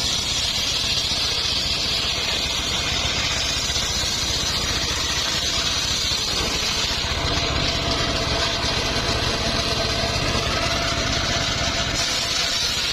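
Engine-driven circular saw running steadily: a low engine rumble with a high hiss from the blade, the hiss strongest in the first half and again near the end.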